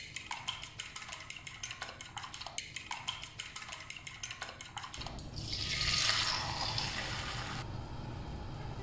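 Channel intro sound effect: a quick run of light clicks or pops, about seven a second, then a hissing whoosh that swells about five seconds in and settles to a softer hiss near the end.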